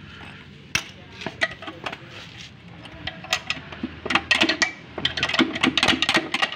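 Hand tools on a dismantled Daihatsu Espass engine: one sharp metallic click about a second in, then from about four seconds on rapid runs of metal clicks and clinks as a bolt is worked with a long wrench.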